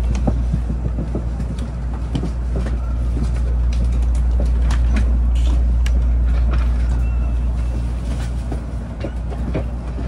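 Interior running noise of an N700A Shinkansen car as it slows into its terminal station: a steady low rumble with many irregular clicks and knocks from the wheels and running gear.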